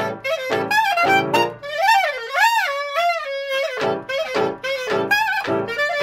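Small hot-jazz band of clarinet, piano and washboard playing a 1920s-style blues with a steady beat. About two seconds in, the piano and washboard stop for a couple of seconds. The clarinet plays alone in a break with bending, sliding notes, then the band comes back in.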